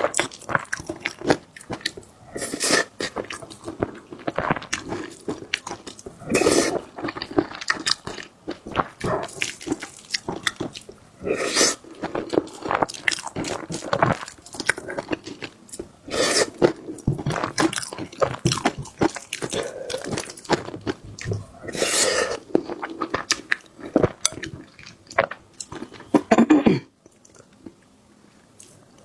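Close-miked chewing and biting of rice and stir-fried dishes, irregular crunches and wet mouth sounds that stop shortly before the end.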